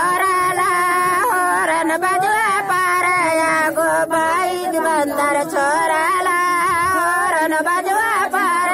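A man singing a Surjapuri folk song (geet) in a high voice, with a wavering, ornamented pitch.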